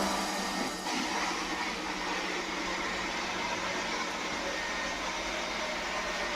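Polaris robot vacuum cleaner running: a steady whir of its motor and fan.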